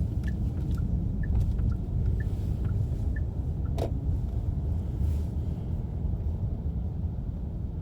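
Low, steady rumble of a car driving, heard from inside the cabin. Faint ticks come about twice a second for the first three seconds, and there is a single sharp click a little past the middle.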